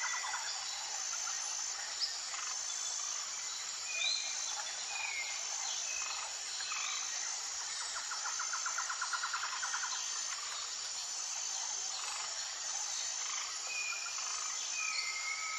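Outdoor nature ambience of insects and birds. A steady high insect chirring with a short pulse about once a second runs under scattered short bird chirps. A fast trill comes a little past halfway, and a long whistled note comes near the end.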